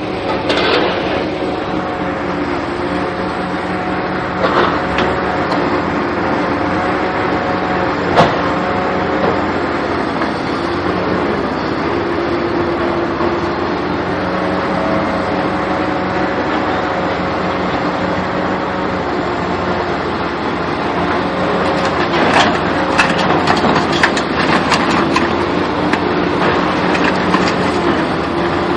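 A vehicle running steadily, with a few held, slightly wavering tones, and scattered sharp knocks and clatter that bunch together about three quarters of the way through.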